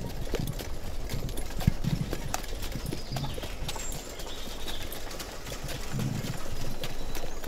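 Horse hooves clip-clopping at an uneven pace as a horse-drawn carriage moves along, with low knocks from the carriage.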